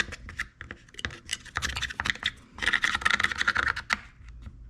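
Quick, repeated scratching and scraping as caked dirt is scratched out of a chainsaw part with a small tool, thickening into a dense stretch of scraping about three seconds in.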